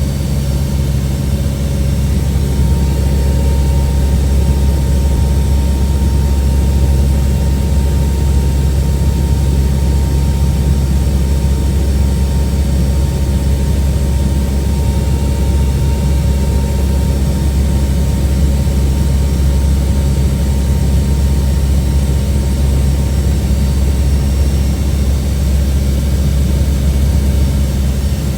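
Four turboprop engines of a C-130 Hercules running in a steady, loud drone: a deep hum with a few steady tones above it, unchanging throughout.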